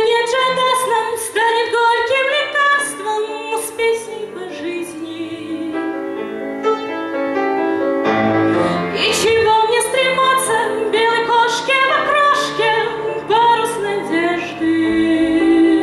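A woman singing a song in Russian while accompanying herself on an August Förster grand piano; near the end she holds one long note.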